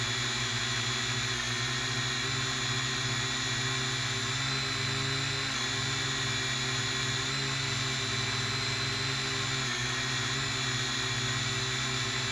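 Steady hum of the rotors and motors of the aircraft carrying the camera for an aerial shot, with several steady tones over a fast, even low flutter.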